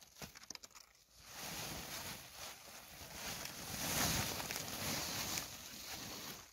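Woven plastic sacks rustling and crackling as they are dragged and flapped off a pile of split firewood, loudest about four seconds in when one is lifted and shaken.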